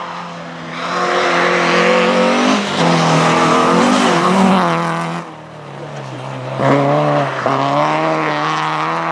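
Rally car engines running at high revs: a Renault Clio rally car approaches and passes close by. After a break about five seconds in, a second small hatchback rally car is heard running hard on the snowy stage.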